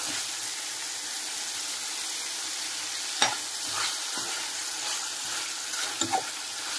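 Chicken pieces sizzling in a frying pan while their released water cooks off, stirred now and then. There is a sharp knock against the pan about three seconds in, and a couple of lighter ones near the end.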